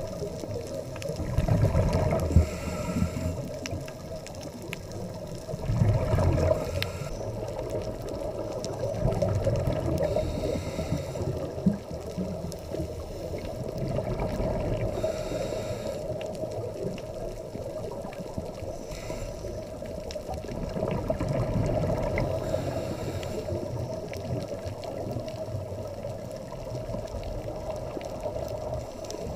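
Scuba diver's regulator breathing heard underwater: exhaled bubbles gurgle up in swells about every four seconds over a steady underwater hum.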